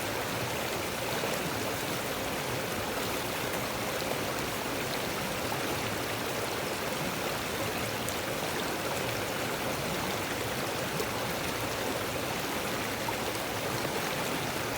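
Small river flowing: a steady, even rush of water.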